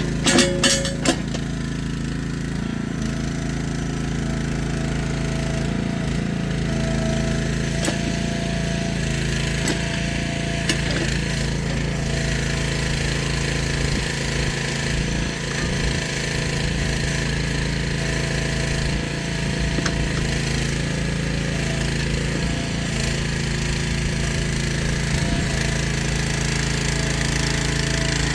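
Jansen walking mini excavator running steadily, with a few sharp metallic clinks in the first second.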